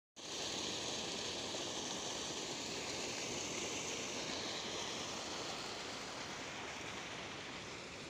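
Fast, turbulent white water churning and rushing: a steady hiss of moving water, easing slightly near the end.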